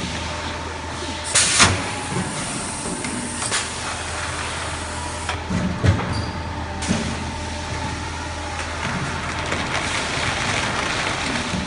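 Cooling-tower fill forming machine running, a steady machine hum with a faint whine. A sharp burst of noise comes about one and a half seconds in, and a few knocks come near the middle as the machine cycles.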